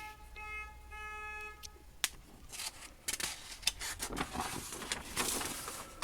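Paper sheets rustling and being shuffled as drawn plans are handled, after a sharp click about two seconds in. Before that, a short steady pitched tone sounds twice.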